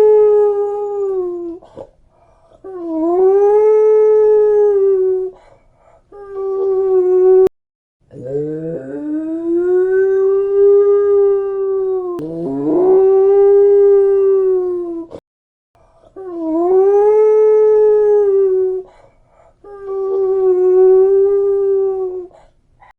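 A puppy howling, a string of long drawn-out howls, each rising at the start and then held on one pitch for two to four seconds, with short breaks between them.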